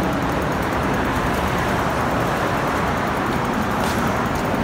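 Steady rushing road and traffic noise heard while riding a bicycle along a street.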